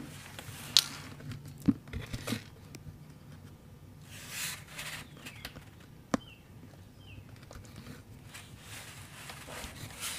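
Handling noise: rustling and scuffing with a few sharp clicks and knocks, from someone shifting about on a concrete garage floor under a car and moving a camera and hand tools. Two faint short chirps come just after the last sharp click.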